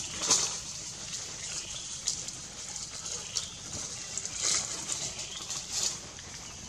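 Tropical forest ambience: a steady high hiss with short, high-pitched chirps or squeaks scattered through it every second or so.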